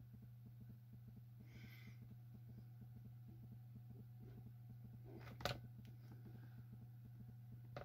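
A steady low electrical hum with a single sharp tap about five and a half seconds in, a finger tapping the laptop's touchscreen, and a fainter tap near the end.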